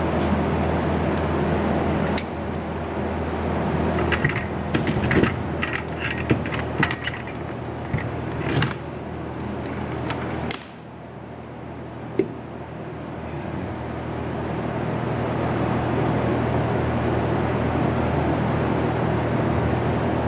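A steady machine hum with a few low tones, with scattered clicks and knocks of small parts being handled. About halfway through the hum drops suddenly, then slowly builds back up.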